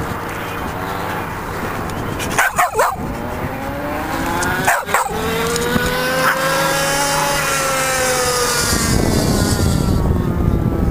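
A dog barks sharply twice, then an engine passes, its pitch sliding slowly down over several seconds, and low rumble builds toward the end.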